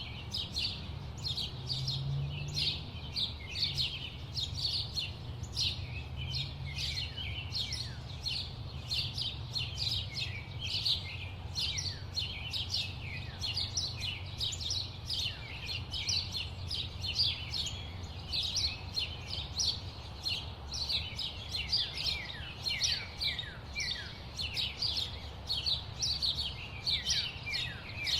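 Many small birds chirping and tweeting in rapid, overlapping short calls that keep going without a break. A steady low rumble of city noise runs underneath.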